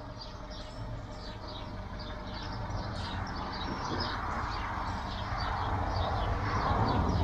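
Hand-pushed railway turntable rumbling as it turns, the noise growing steadily louder, while birds chirp rapidly in short falling notes throughout.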